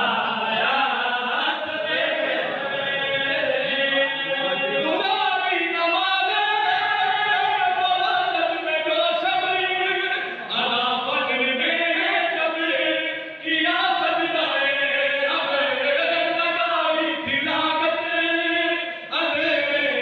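Men's voices chanting a devotional recitation: a lead male voice at the microphone sings long, drawn-out phrases with other men joining in. Short breaks fall between the phrases.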